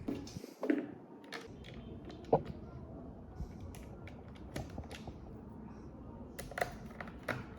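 Light, scattered clicks and taps of plastic parts being handled as the Dyson V7's dustbin is fitted back onto the vacuum, with a sharper click about two and a half seconds in and a quick run of clicks near the end.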